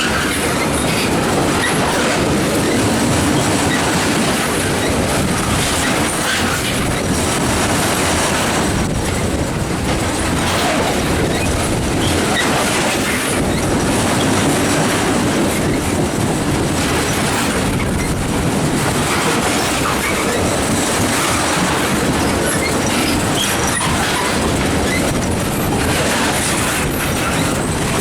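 A train rolling past: a steady loud run of wheels on rail, with clickety-clack over the rail joints and some wheel squeal.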